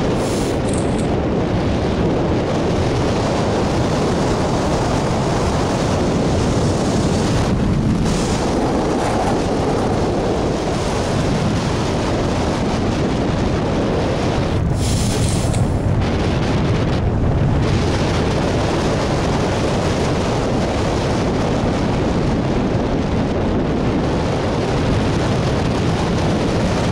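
Steady, loud rush of wind on the microphone of a camera mounted on a hang glider's wing in flight: the airflow over the glider buffeting the mic.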